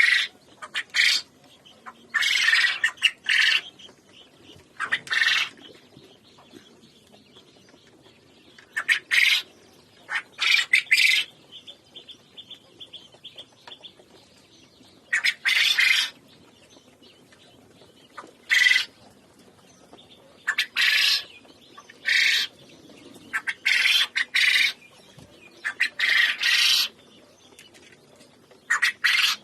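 Birds calling in short loud bursts, each a second or less, repeated at irregular gaps of one to a few seconds.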